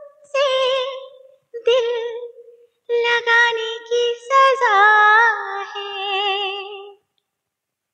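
Female voice singing short wordless phrases with wavy vibrato, separated by brief pauses and with no accompaniment heard; a second sung line joins about halfway through. It stops about a second before the end.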